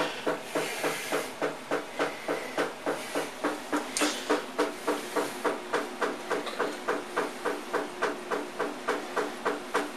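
Maytag top-loading washing machine running, with a regular rhythmic chugging about four beats a second over a steady hiss.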